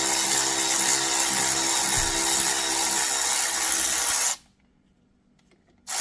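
Power wrench running steadily, backing out a brake caliper slide bolt. It stops about four and a half seconds in and starts again just before the end.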